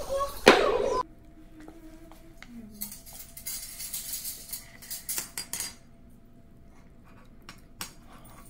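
Silicone spatula scraping and scooping a serving of casserole out of a disposable aluminum foil pan, with a few sharp clicks. The scraping comes in a busy stretch a few seconds in, and a couple of lone clicks follow near the end.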